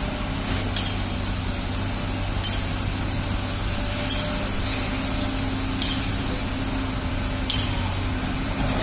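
Construction-site noise: a steady low machinery hum under sharp metallic clinks, six of them, evenly spaced about every second and a half to two seconds.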